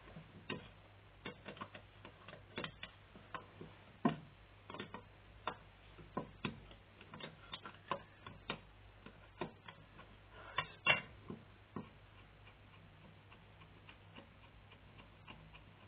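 Small socket ratchet clicking in short strokes as a nut on a carburettor is undone, faint single and double clicks at uneven intervals that stop about twelve seconds in.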